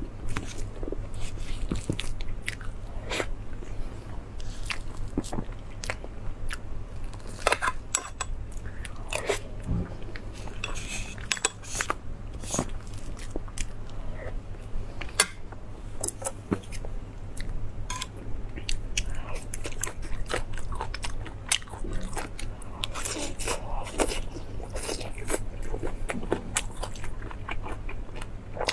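Close-miked eating of meat: irregular biting, crunching and chewing with many short wet clicks, over a steady low hum.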